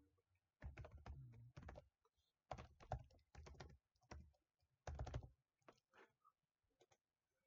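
Computer keyboard typing in a few quick bursts of keystrokes, then a few scattered single key taps near the end.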